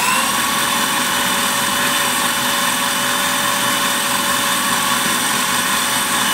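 Electric food processor running steadily at full speed, a loud motor whine with several constant tones, blending a thick chickpea hummus mixture.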